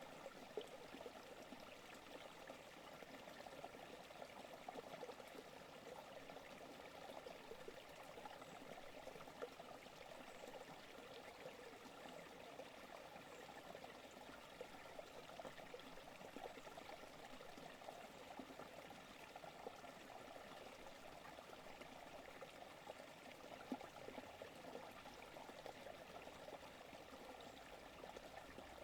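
Forest creek flowing, a faint, steady rush and trickle of running water.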